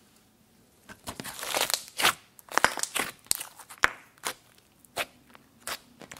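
Glossy pink slime being pressed and kneaded by hand, giving a run of sharp crackling pops and squishes at an uneven pace, starting about a second in.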